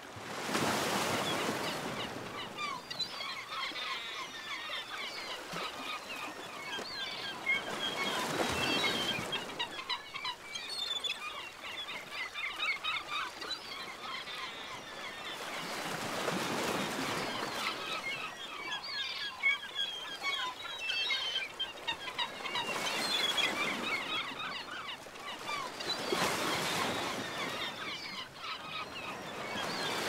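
A flock of birds calling, many short overlapping calls, over surf washing on a beach that swells and fades every few seconds.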